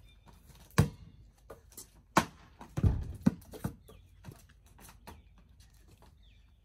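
A basketball bouncing on hard pavement several times as it is dribbled, with a few bounces in quick succession around the middle. Small birds chirp faintly in the background.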